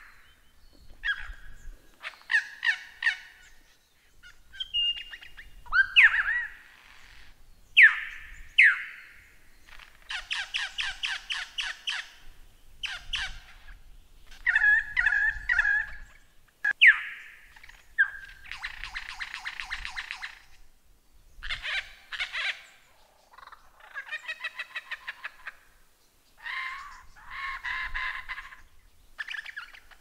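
Lyrebird singing a varied medley of mimicked calls: a string of separate phrases, each a second or two long with short gaps between. They include rapid trills, runs of repeated chirps and sharp down-slurred whistles.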